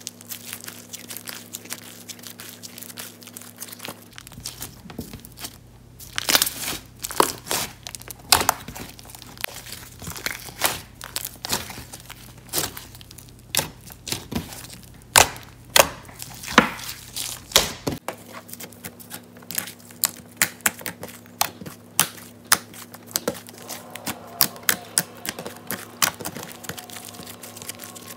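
Glossy clay slime (slime with air-dry clay mixed in) being kneaded, stretched and folded by hand, giving many irregular sharp clicks and pops with quieter sticky squishing between them.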